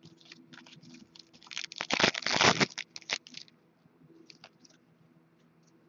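Crinkling and rustling of trading cards and their packaging being handled, a run of crackly bursts that is loudest about two seconds in, then a few faint ticks.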